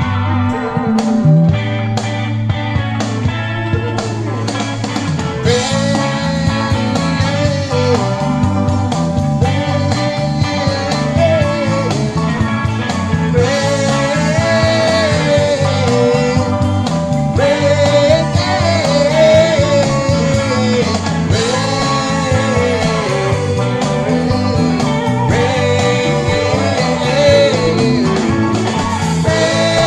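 Blues-rock music with guitar and a steady beat; a bending melody line comes in about five seconds in.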